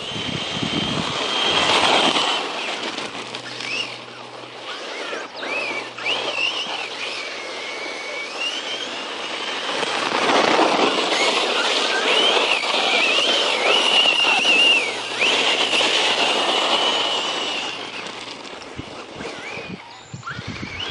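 Circuit Thrash 1/10-scale RC truck's brushless motor whining as it drives, the pitch rising and falling with the throttle, over the rushing noise of its tyres on the dirt. The whine drops away near the end.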